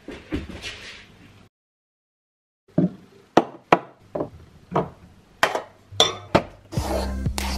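Kitchen handling sounds: a quick run of sharp clinks and knocks, about two a second, as glass spice jars and a pan are handled and set down on the worktop and gas hob. A steady low hum comes in near the end.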